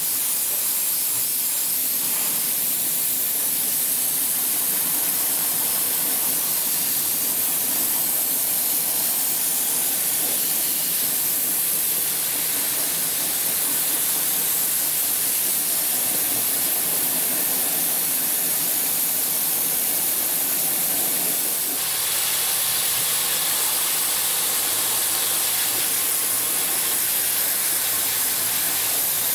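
Dry ice blasting gun firing a continuous loud hiss of compressed air and dry ice pellets against the car's underbody, stripping undercoating. Its tone shifts slightly about two-thirds of the way through.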